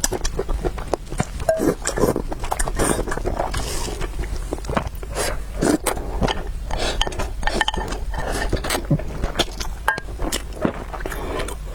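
Close-miked eating of spicy noodles and soup: an irregular run of chewing and mouth clicks, several a second.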